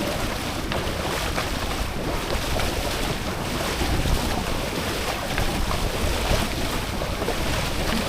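Steady wind buffeting the microphone over rushing, splashing water, as from a small boat running across open water.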